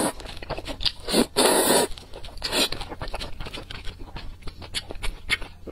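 A person slurping noodles, with a long loud slurp about a second in and a shorter one a little later, then chewing, with many small wet clicks.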